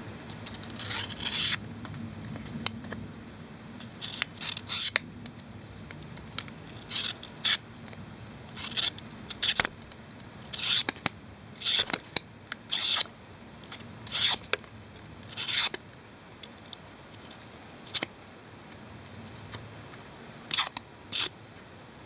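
Victorinox One-Hand pocket-knife blade slicing through a strip of paper, about a dozen and a half short crisp cuts at irregular intervals. The factory edge, never sharpened, cuts the paper simply by being pushed forward.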